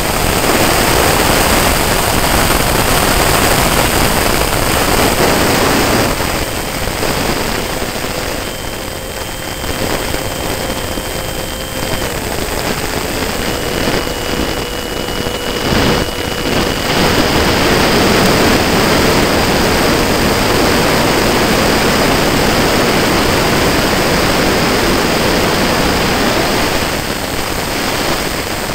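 Radio-controlled model F-86 jet in flight, heard from its on-board camera: a loud, steady jet rush mixed with wind over the airframe, with a thin whine that shifts slightly in pitch now and then. The rush fades and swells a few times.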